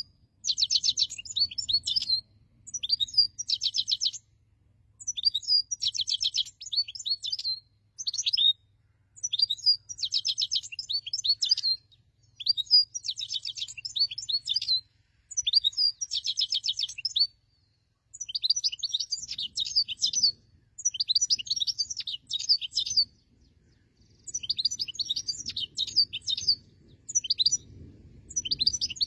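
European goldfinch of the black-headed form singing: phrases of rapid high twittering notes, each about one to two seconds long, repeated with short pauses between.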